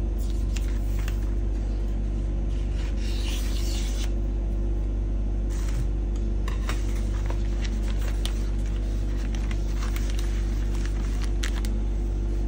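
White florist wrapping paper rustling and rubbing as it is unrolled and slid across a tabletop, then folded, with many short crinkles in the second half. A steady low hum runs underneath.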